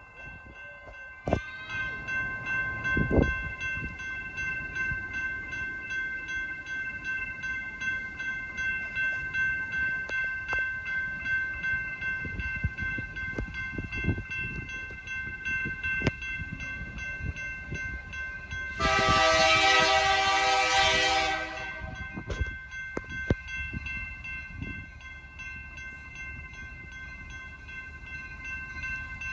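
Railroad crossing bell ringing steadily as a BNSF local train approaches. About two-thirds in, the locomotive's air horn sounds one long blast lasting nearly three seconds.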